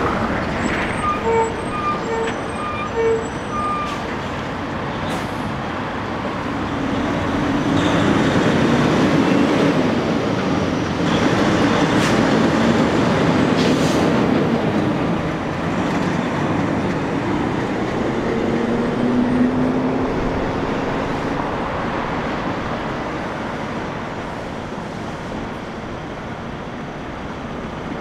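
Tractor-trailer semi trucks passing close by: diesel engines running and tyres rolling, loudest in the middle as a flatbed rig goes past. About a second in there are four short, evenly spaced beeps.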